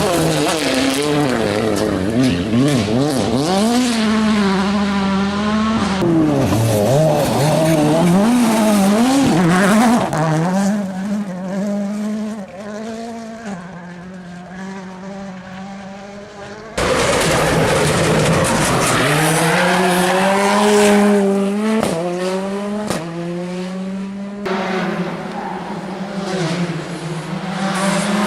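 Rally cars at full race pace, engines revving hard and dropping back again and again through gear changes, with tyre squeal. One car fades off, then another bursts in loud near the middle, and there is a further abrupt change near the end.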